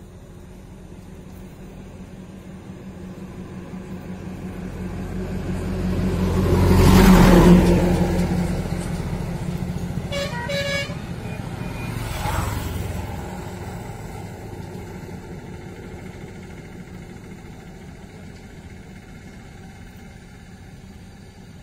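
A motor vehicle passing by on a road, growing louder to a peak about seven seconds in and then fading, with a second, smaller pass about twelve seconds in. A few short horn beeps sound about ten seconds in.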